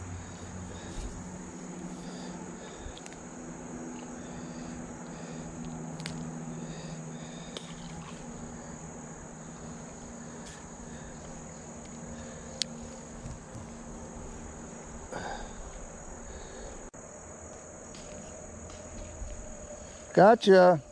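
Steady high-pitched insect chorus, crickets or similar, droning without a break. A few faint clicks come from handling a fishing rod, and a man's voice speaks briefly near the end.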